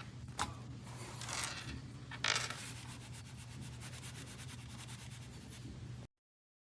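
Rubbing and handling noises: a click, then brushing scrapes, the loudest about two seconds in, over a steady low hum. The sound cuts off suddenly about six seconds in.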